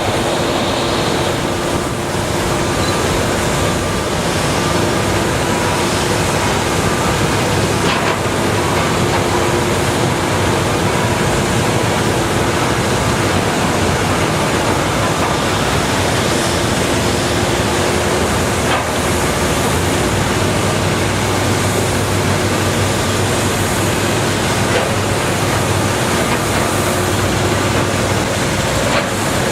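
Cat 320DL hydraulic excavator working clay: its diesel engine and hydraulics running steadily under load, with a faint steady hum and a couple of brief knocks.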